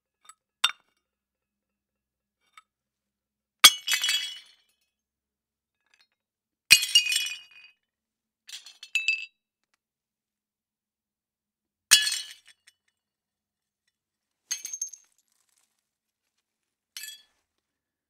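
China plates breaking one at a time, each a sharp crash followed by shards clinking and scattering for under a second. The three loudest crashes come about four, seven and twelve seconds in. Smaller breaks and clinks come at the start and around nine, fifteen and seventeen seconds.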